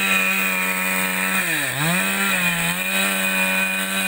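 Chainsaw running at high revs, loud and steady; its pitch dips once about a second and a half in and climbs back, as it does when the saw is loaded in the cut.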